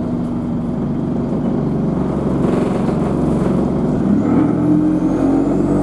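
Euro 5 Alexander Dennis Enviro200 bus engine running, then picking up revs as it accelerates about four seconds in. A high turbocharger whine starts near the end and rises steadily in pitch.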